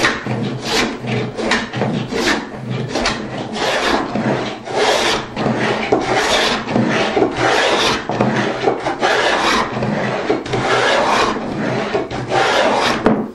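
Dado plane cutting a dado across the grain of a board, in repeated rasping strokes, set for a fairly thick cut. The strokes are short and quick, about three a second, for the first few seconds, then longer and slower.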